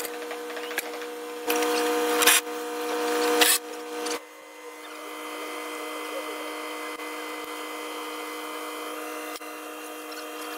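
A motor runs in two bursts of about a second each, the second rising in level, over a steady machine hum that carries on after them.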